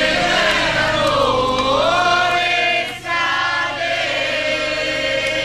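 Group of voices singing a slow chant in unison, in long held notes, breaking off briefly about three seconds in before the next long note.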